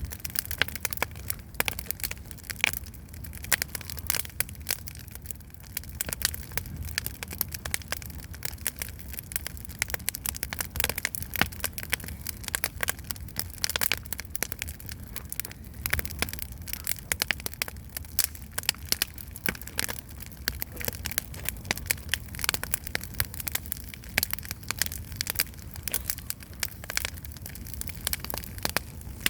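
Campfire crackling: a dense, irregular run of sharp pops and snaps from burning wood, over a low steady rumble.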